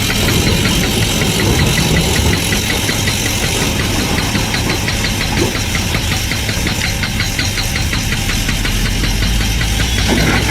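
Diesel engine of heavy earthmoving machinery running steadily, with a fast, even ticking over it from about four seconds in.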